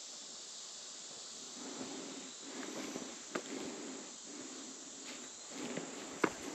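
Steady insect buzz in summer woodland, with a hiker's soft footsteps scuffing on stone trail steps and a few sharp clicks near the end.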